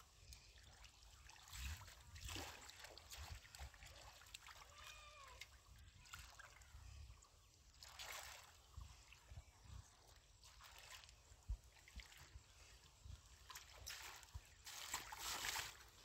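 Faint splashing and sloshing of shallow muddy water as hands grab a catfish and it thrashes. The splashing comes in irregular bursts and is loudest near the end.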